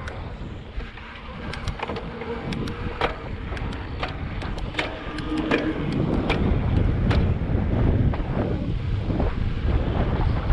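Wind buffeting the microphone while moving, a steady low rumble that grows louder about halfway through, with a scatter of sharp irregular clicks and rattles in the first two-thirds.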